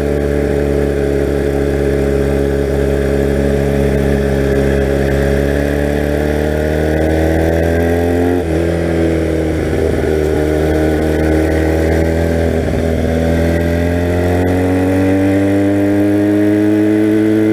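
1982 Honda motorcycle engine pulling under way, its note climbing slowly. The pitch drops suddenly about eight and a half seconds in as the rider shifts up, then climbs again.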